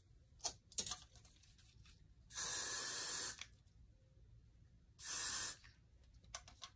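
Hairspray sprayed onto the hair in two bursts, the first about a second long, the second shorter, to hold down flyaways. A couple of soft clicks come before them.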